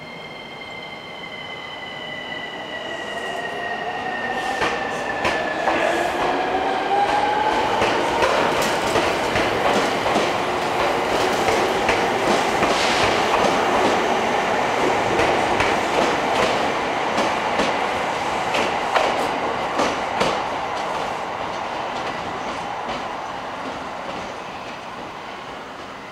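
Chichibu Railway 7500-series electric train pulling away from the platform: the motor whine rises in pitch over the first eight seconds or so while a higher tone slides down. Then the wheels clatter over the rail joints as the cars pass, loudest in the middle and fading toward the end.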